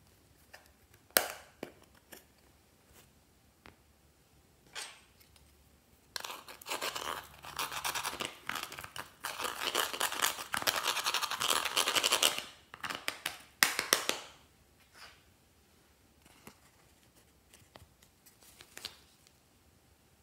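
A thin metal tool scraping and chipping pressed red makeup out of a plastic compact, a dense rapid scratching that lasts about six seconds in the middle. Sharp clicks and taps come before and after it.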